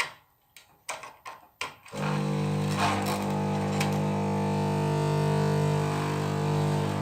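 Magnetic choke ballast of a fluorescent tube with one cut electrode: a few sharp irregular clicks, then about two seconds in the ballast breaks into a loud, steady low buzz. The noise comes from the failing end-of-life tube sending large discharges through its electrodes.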